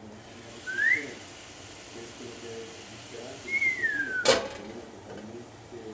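Two brief high-pitched glides, the first rising and the second falling, then one sharp metallic clack as the aluminium pan lid is handled on the pan.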